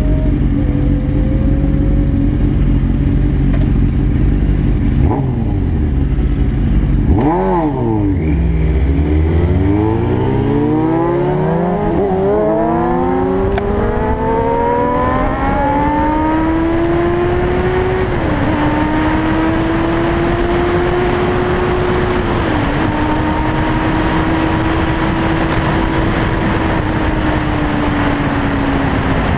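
Inline-four sport motorcycle engine idling at a stop with a short throttle blip, then revving hard from about seven seconds in as the bike pulls away, climbing in pitch through several quick upshifts. It then settles into a steady cruise with two more shifts, under rising wind noise on the microphone.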